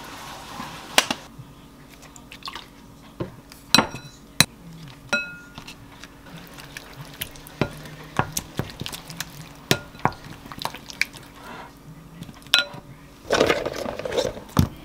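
Liquid seasoning pouring in a thin stream into a glass mixing bowl, then a wooden spoon stirring thick chili-paste sauce and knocking against the bowl, with scattered ringing clinks of the glass. Near the end, a plastic bag rustles.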